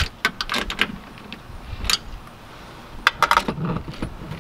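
Sharp metallic clicks and clinks from a cordless screwdriver with a socket being handled and fitted against the van's door, in a few quick clusters.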